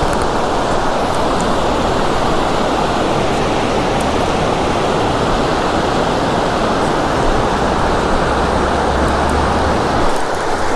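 Loud, steady rush of fast-flowing river water.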